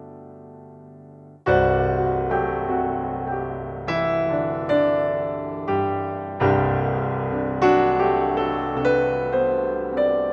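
Background piano music: notes and chords struck and left to ring out. The sound dies away at first, then a louder new phrase starts about a second and a half in.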